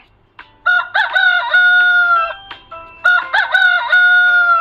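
Rooster crowing twice, each cock-a-doodle-doo ending in a long held note.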